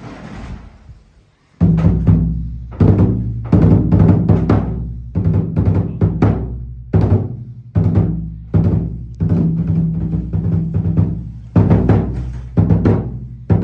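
Large Japanese drum beaten in a kagura accompaniment rhythm, starting about one and a half seconds in. It gives loud, uneven strikes, one or two a second, each ringing on with a low, deep hum.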